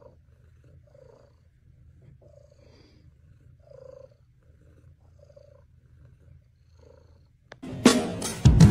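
Domestic cat purring: a faint, steady low rumble. About seven and a half seconds in, loud music with a drum beat starts.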